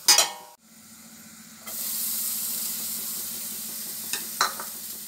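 Shredded cabbage and vegetables sizzling in hot oil in a stainless steel pot, with a metal spatula scraping through them twice near the end. It opens with a brief loud clatter, and the steady sizzle sets in a little under two seconds in.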